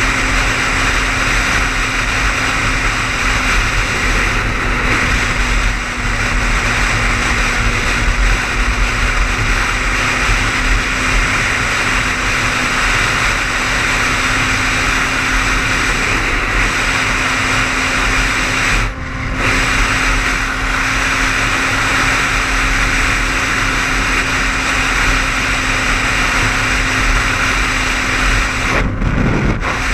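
Car driving at highway speed: steady road and engine noise with a constant low hum. The sound dips briefly twice, about two-thirds of the way in and near the end.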